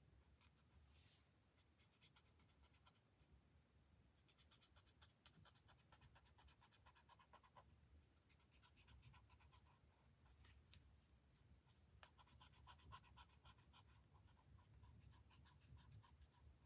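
Faint scratching of a marker nib rubbing over paper in quick repeated strokes, coming in several bouts with short pauses, as colour is worked into an area.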